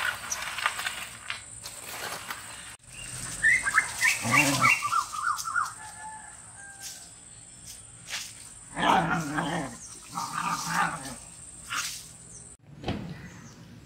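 Dogs vocalizing in bursts: a quick run of short yelps about four seconds in, then louder barks or growls about nine to eleven seconds in.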